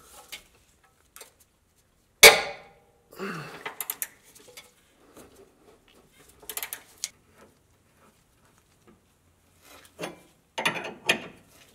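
Hand tools on the steel track-bar mount under a Jeep: one sharp metallic clank about two seconds in, then scattered clicks and clinks of a wrench working the castellated nut, with a quick run of clicks near the end.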